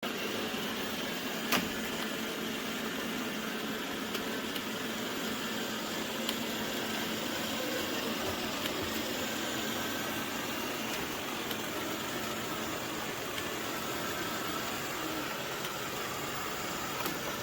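FIXR robot vacuum cleaner running: a steady mechanical hiss with a few faint clicks, the sharpest about a second and a half in.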